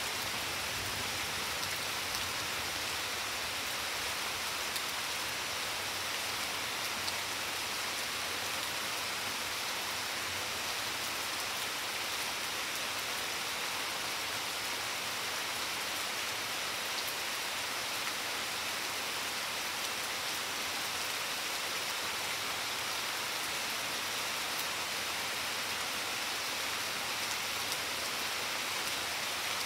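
Steady rain falling on garden plants, lawn and a flagstone patio: an even, unbroken hiss with scattered drop ticks.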